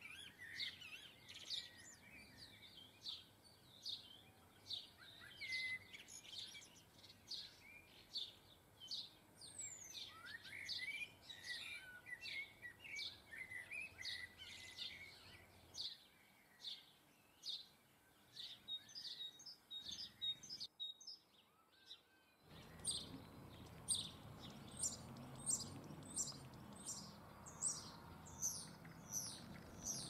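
Small garden songbirds chirping and twittering in quick, repeated short notes. There is a brief dropout about two-thirds through, and after it a steady hiss runs under the calls.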